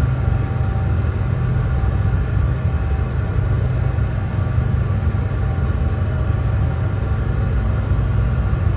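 Brown noise: a steady, deep noise with most of its weight in the bass, falling away toward the highs, with no change or event.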